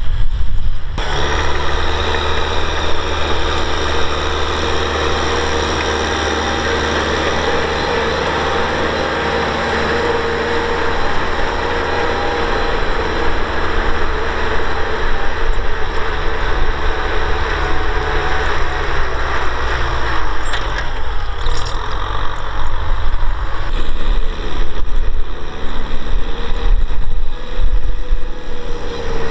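Kubota M6040SU tractor's diesel engine running steadily under load while it pulls a disc plough through the soil.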